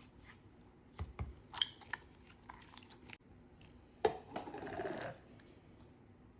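Slime being squished and worked by hand, giving wet clicks and crackling pops in two bursts, the second about four seconds in and longer.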